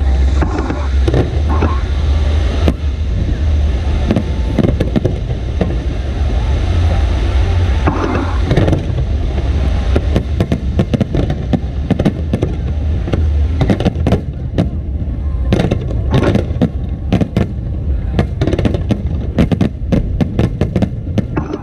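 Aerial fireworks display going off: a continuous run of booming bursts and sharp crackling bangs over a low rumble, getting denser and faster in the second half.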